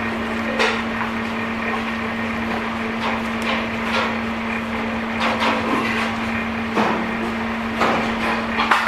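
Shop kitchen noise: a steady hum with scattered light knocks and taps.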